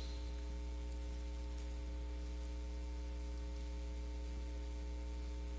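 Steady low electrical mains hum with a faint hiss and a few thin steady tones above it.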